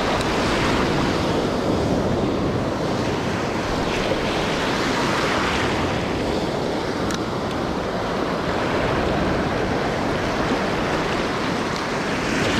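Ocean surf breaking and washing in foam close by, a steady rushing with slight swells, with wind on the microphone.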